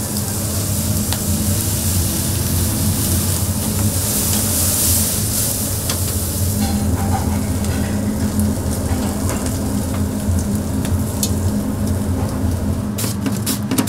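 Marinated pork bulgogi sizzling as it cooks, with a steady low hum underneath and a quick run of sharp clicks near the end.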